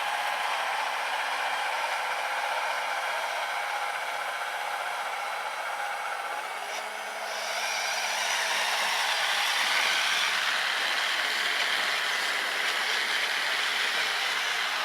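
Small brushed 550 electric motor of a model RC snowblower spinning its auger through powder snow: a steady whirring with a faint whine. It dips briefly about halfway through, then comes back stronger.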